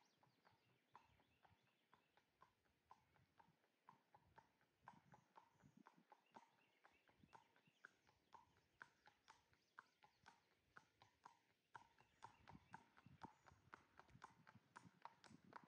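A horse's hooves clip-clopping on asphalt at a walk: faint, steady hoofbeats a few per second, growing louder over the last few seconds as the horse comes closer.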